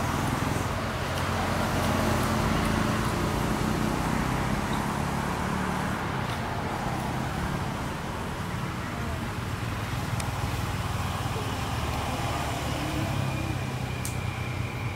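Steady low rumble of outdoor background noise, like distant road traffic, with faint indistinct voices mixed in; the monkeys themselves make no clear calls.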